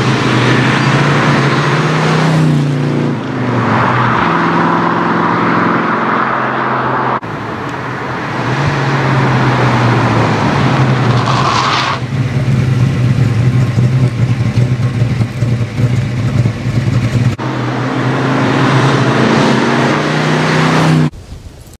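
351 V8 of an XY Ford Falcon GT-HO tribute running as the car drives along the road, a steady deep engine note whose sound changes abruptly a few times between shots. It drops away just before the end.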